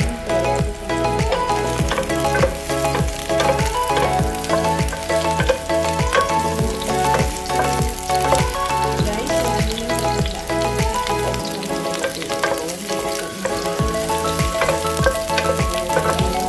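Sliced red onion and garlic sizzling in hot oil in a pan as they are stirred, under background music with a steady beat.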